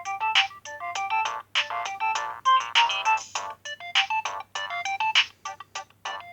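Nokia 2610 mobile phone playing a polyphonic ringtone: a fast, bright melody of short notes, its phrase repeating a little less than once a second.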